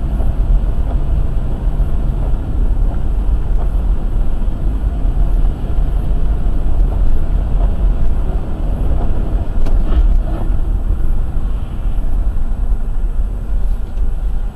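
Steady low rumble of a car on the move, engine and road noise heard from inside the cabin through a dashcam microphone.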